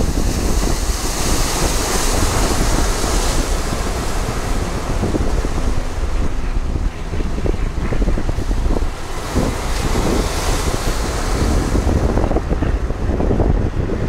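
Mediterranean surf breaking and washing over shoreline rocks, swelling louder about two seconds in and again near ten seconds, with heavy wind rumble on the microphone.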